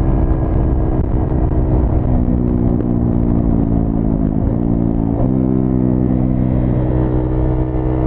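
KTM Duke 390's single-cylinder engine running through a Cobra SPX-O aftermarket exhaust. Its revs shift up and down for the first five seconds, dip and pick up again about five seconds in, then hold steady.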